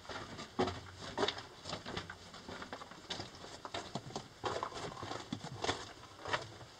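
Footsteps of people walking on the loose rock and gravel floor of a narrow mine tunnel: irregular crunching steps, one or two a second.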